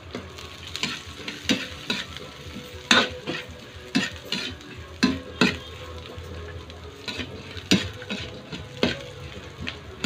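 Stir-frying in a steel wok: a metal ladle scraping and knocking against the pan in irregular strokes, one or two a second, over a steady sizzle.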